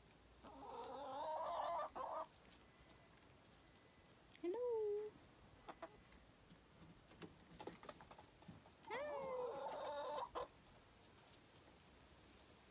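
Hens in a chicken run calling: a long drawn-out call near the start, a short rising-and-falling cluck about four seconds in, and another long call about nine seconds in.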